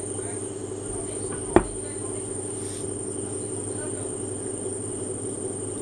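Steady high-pitched whine over a low hum, with one sharp knock about a second and a half in.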